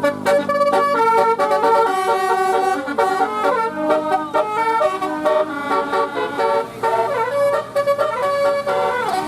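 Telolet horn, a multi-tone musical air horn, playing a quick melody of rapidly changing notes, with a few short rising-and-falling swoops in the second half.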